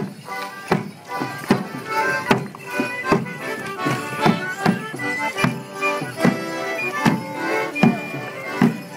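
A morris band playing a lively folk tune on fiddle and accordion, with a steady bass drum beat about every 0.8 seconds.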